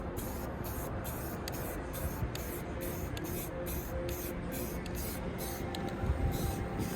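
Aerosol spray-paint can spraying black paint in short hissing bursts, about two or three a second, with brief gaps between them.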